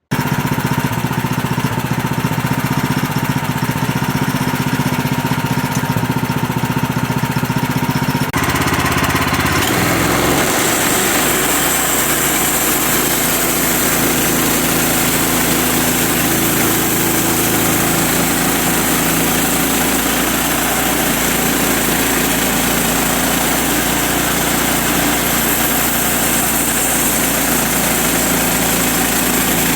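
Small log sawmill's engine running steadily while milling a log, its sound shifting about eight to ten seconds in.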